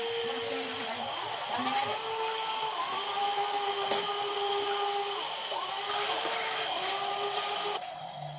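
Electric motors of a metal RC construction model whining, the pitch stepping up and down as the controls are worked. The whine cuts off suddenly near the end.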